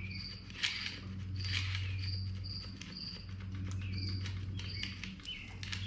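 Background chirping of birds and insects: short high chirps repeating every half second or so, mixed with some falling chirp notes, over a steady low hum, with scattered light clicks.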